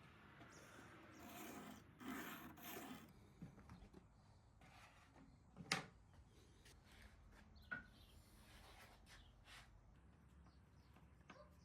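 Faint rubbing and scraping on wood, several soft swishes in the first three seconds, then a sharp click near the middle and a lighter one a couple of seconds later.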